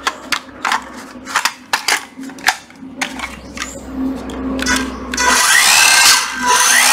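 Hitachi 14.4 V cordless circular saw, held in the hand and test-run: a run of clicks and knocks as it is handled, then its motor whirs up about five seconds in and runs loudly with the blade spinning free.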